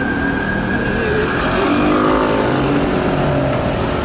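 Fire engine's siren wailing with a slow rising tone that fades out about a second in as the truck moves off into traffic, over the steady noise of engines in the street.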